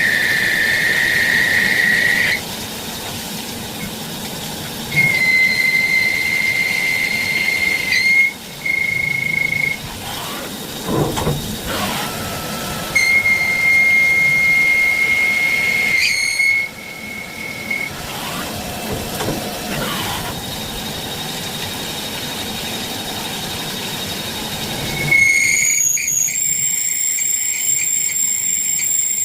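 Metal being turned on a CNC lathe, the cutting tool squealing in a high steady whistle that starts and stops in stretches of a few seconds over machine noise. Near the end a shriller, higher whine sets in.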